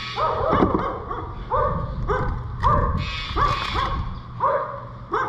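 An animal calling over and over, about two calls a second, each call a short note that slides upward in pitch.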